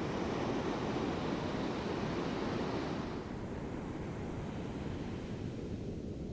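Ocean surf breaking, a steady rushing noise that turns duller and lower about three seconds in, with some wind on the microphone.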